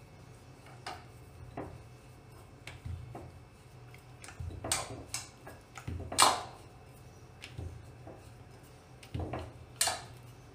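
Wooden rolling pin rolling out dough on a stone rolling board, with irregular knocks and clacks of the pin against the stone, the loudest about six seconds in.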